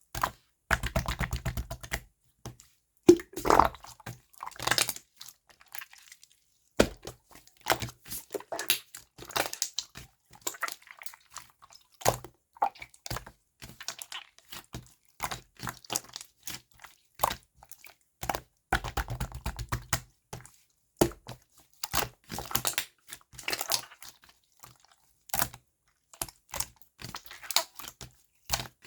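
Hands kneading and mixing slime: sticky crackling and small air pops and clicks, coming in irregular runs with short quiet gaps between them.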